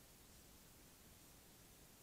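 Near silence: a faint, even hiss of microphone noise with no distinct sounds.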